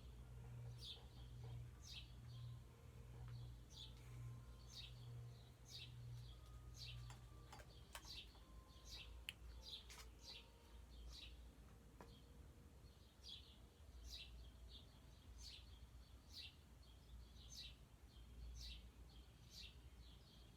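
Low ceiling-fan motor hum that changes about seven seconds in, with short, high, falling chirps repeating roughly once or twice a second over it, like a bird calling.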